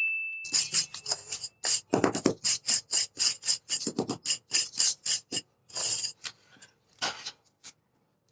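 A ringing bell-like tone fades over the first second and a half. Under it starts a quick run of sharp, bright clinks of hard objects on glass, about three to four a second, that thins to a few scattered clinks near the end.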